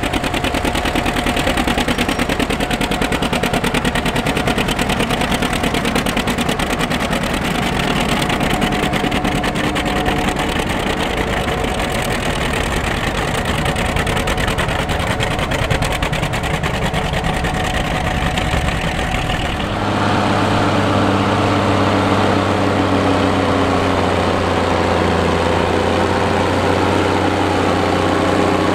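A big John Deere four-wheel-drive articulated tractor's diesel engine working hard under load, pulling a field cultivator, with a dense, fast rattle. About two-thirds of the way through, the sound switches abruptly to a 1969 John Deere WA-14 four-wheel-drive tractor's engine working the field, a steadier drone with a strong low hum.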